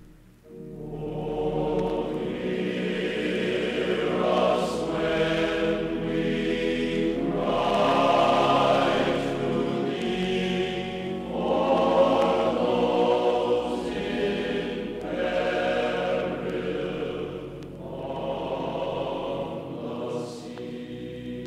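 Background choral music: a choir singing slow, held chords that swell and fade in long phrases.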